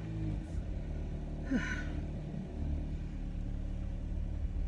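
Steady low rumble of a car, heard from inside the cabin. A short breathy sound comes about a second and a half in.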